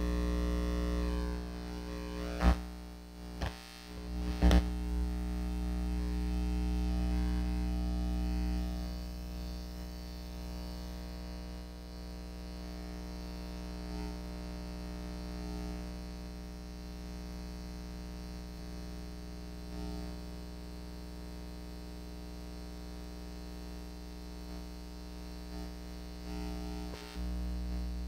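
A steady low hum of several held tones, unchanging throughout, with a few sharp knocks about two and a half to four and a half seconds in and once more near the end.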